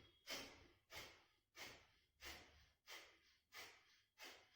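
Kapalbhati breathing: faint, forceful exhalations through the nose, a short sharp puff of air about every two-thirds of a second, seven in all, each fading quickly.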